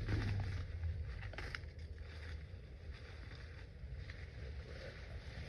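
Low, steady wind rumble on the microphone, with a few faint rustling sounds from pulling up grass in a garden bed.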